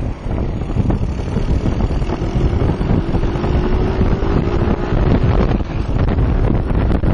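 Stock Honda Astrea 800's single-cylinder four-stroke engine running, loud and close to the microphone, with a faint thin whine over it for a few seconds in the middle. The owner likens its sound to a DOHC engine.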